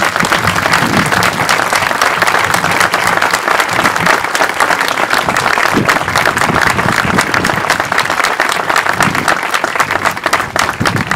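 Audience applauding: dense, steady clapping from many hands that thins out slightly near the end.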